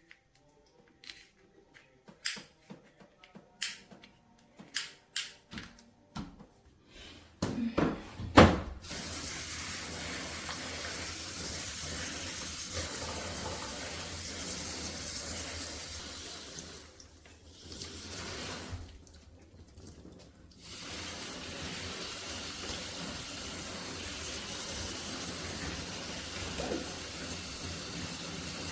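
A few sharp clicks and knocks, then water spraying steadily from a handheld shower head, cutting out briefly twice.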